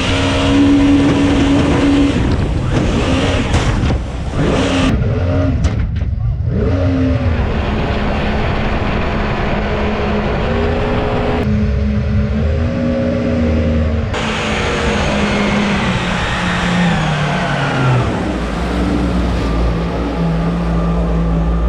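Mini jet boat's 1053cc Yamaha four-stroke engine running under way, its pitch rising and falling several times as the throttle changes and dropping lower near the end, over a broad rushing noise.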